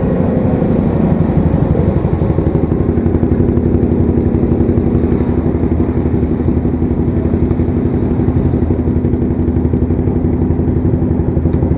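Off-road vehicle engine running steadily at low revs close to the microphone, with a fast, even throb.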